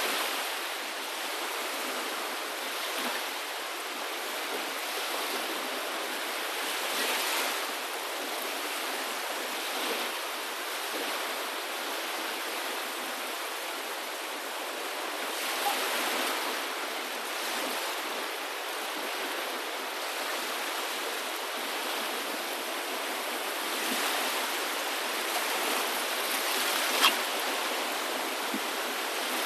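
Steady rush of running water, swelling slightly now and then.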